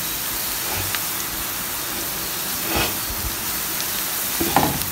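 Chopped onions sizzling steadily in a little oil in a frying pan as they soften toward light brown, stirred with a wooden spatula that scrapes the pan briefly twice.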